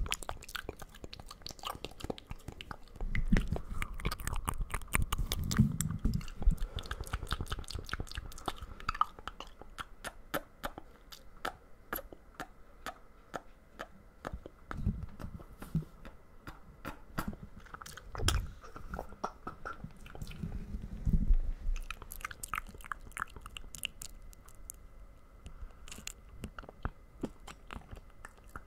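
Close-miked ASMR mouth sounds: a dense run of rapid wet clicks, smacks and tongue taps, with a few louder low thuds mixed in.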